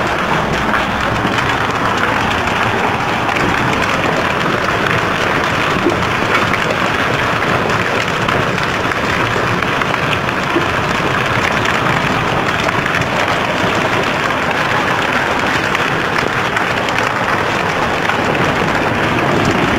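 Heavy hail mixed with rain pelting the ground and concrete surfaces: a loud, steady, dense rattle of countless small impacts.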